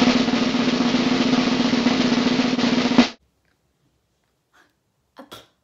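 Drum roll sound effect, about three seconds of rapid, even strokes ending in a single louder hit and stopping abruptly.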